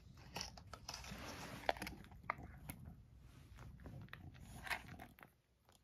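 Cat chewing a small Ciao Churu Bits treat picked up from the floor: a run of faint crunches and small sharp clicks.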